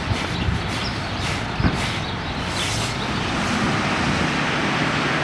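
Street traffic on wet roads, a steady hiss of tyres and passing cars, with a single thump about one and a half seconds in. It gets slightly louder toward the end.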